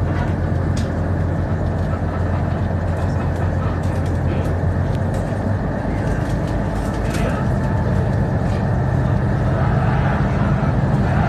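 Motorboat engine running steadily under way, with water rushing past the hull; its note shifts a little higher about halfway through and grows slightly louder near the end.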